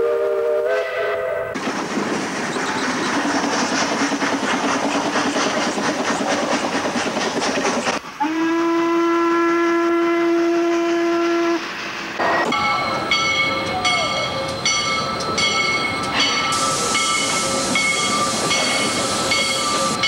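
Steam locomotive chuffing and blowing its whistle. A chime whistle ends about a second in. Rapid chuffs with steam hiss follow, then a long steady whistle blast about eight seconds in. After about twelve seconds another run of chuffing comes in with an even beat and hiss.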